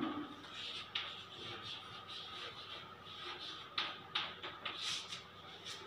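Chalk writing on a chalkboard: faint scratching strokes, with a few sharper taps of the chalk on the board, most of them in the second half.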